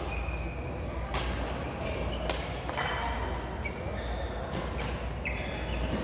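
Badminton rackets striking a shuttlecock in a rally: sharp hits at irregular intervals, about six in all, with short high squeaks of shoes on the court floor over a steady low hum in a large hall.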